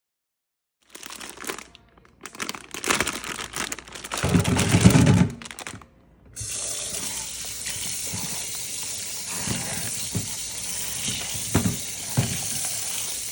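Kitchen tap running into a sink: first a few seconds of irregular splashing, loudest about four to five seconds in, then after a brief break a steady stream of running water.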